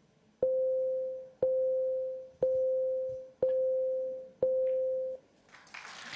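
Snooker Shootout shot-clock warning beeps: five identical electronic beeps about a second apart, each held most of a second, counting down the last seconds the player has to take his shot. A burst of crowd noise rises just before the end.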